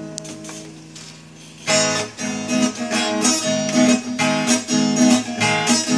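Acoustic guitar introduction: a chord rings and fades, then steady rhythmic strumming starts about two seconds in.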